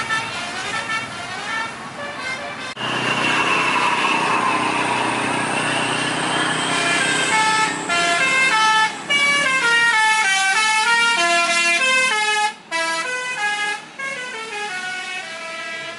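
Indonesian tour bus telolet horn, a multi-tone musical air horn, playing quick melodic runs of short stepping notes. About three seconds in there is one long, loud blast whose pitch wavers slowly for several seconds. After it come fast jingle-like note patterns again.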